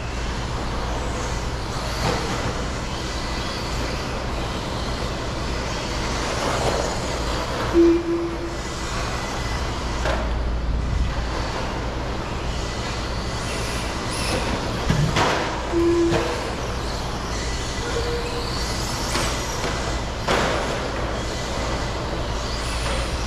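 Radio-controlled stadium trucks racing on an indoor dirt track: a steady rumble with sharp knocks scattered through it as the trucks land and strike the track, and a few short beeps.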